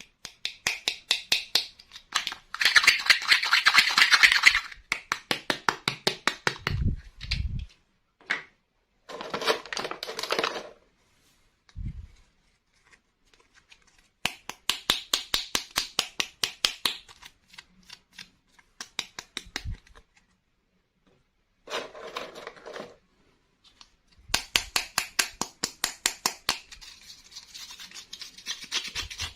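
Toy packaging being unwrapped and handled by hand: bursts of rapid clicking, scratching and crinkling, each a few seconds long with short pauses between.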